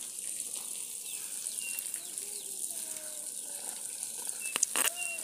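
Birds chirping: short high whistles and a few gliding notes over a steady high hiss, with a few sharp clicks near the end.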